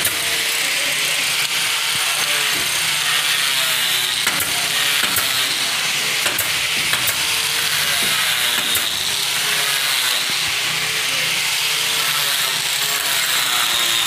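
Carpentry work on wooden panelling: a steady mechanical hiss with a few sharp clicks and knocks scattered through it as a handheld tool is worked against the wooden frame.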